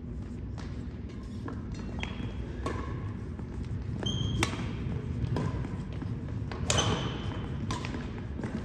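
Badminton rackets striking a shuttlecock in a fast doubles rally: a series of sharp string pings and thwacks, the loudest about two-thirds of the way through, with players' footsteps thudding on a wooden court and the echo of a large gym hall.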